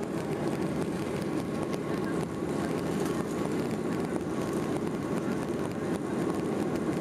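Steady cabin noise of a Boeing 737-800 climbing out, the CFM56 engines and rushing airflow heard from a seat over the wing as an even, low rumbling roar.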